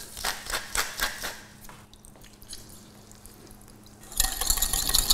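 Hand pepper mill grinding in a few short rasps over a bowl. About four seconds in, a wire whisk starts beating egg yolks in a glass bowl: a fast, loud clatter of wire on glass.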